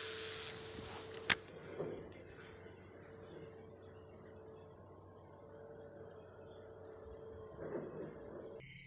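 Steady high-pitched insect drone that stops abruptly near the end, with one sharp click about a second in.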